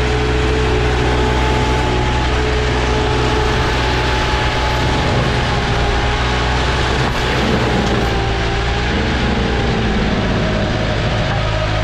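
Green Climber LV600 remote-controlled tracked mower running hard with its Kohler engine and forestry mulcher rotor spinning: a loud, steady drone with a high whine over it. The whine wavers in pitch in the last few seconds.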